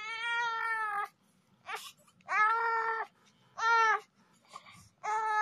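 Newborn baby crying in four wails: a long one of about a second, then three shorter ones a second or so apart. The parent wonders whether the baby is hungry for milk or just fussing.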